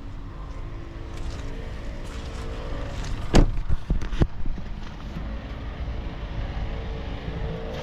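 Land Rover Discovery 4's 3.0-litre V6 diesel engine turning over with a steady low drone. Two sharp knocks land about three and a half and four seconds in.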